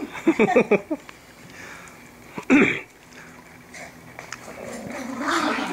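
Two dogs, a Siberian husky and a small dog, play-fighting: a run of growling and snarling in the first second, then a single short, louder snarl falling in pitch about two and a half seconds in, with quieter scuffling and sniffing between.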